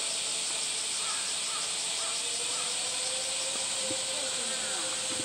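Steady, dense high-pitched drone of a cicada chorus.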